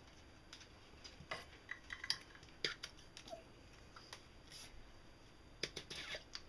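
Faint, scattered clinks and taps of stainless steel measuring cups and a utensil against a glass mixing bowl as mayonnaise is measured out, a few in quick clusters.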